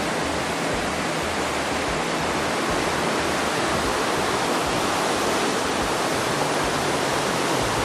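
Steady rush of the Tietê River running full, a continuous roar of fast-flowing water.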